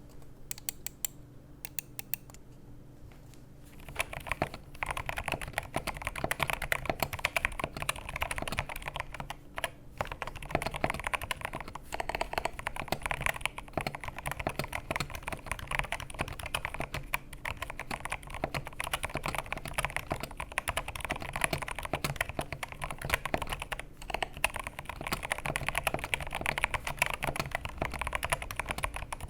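Typing on a mechanical keyboard fitted with Akko Rosewood linear switches. It starts with a few single keystrokes, then about four seconds in turns to fast, continuous typing with only a couple of short pauses.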